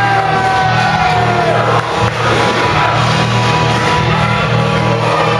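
Loud music played over a hall's PA system, with a crowd shouting over it.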